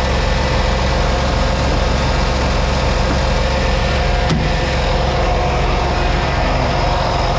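Heavy truck's diesel engine idling steadily, running again after a jump start from a low battery. A single sharp click about four seconds in.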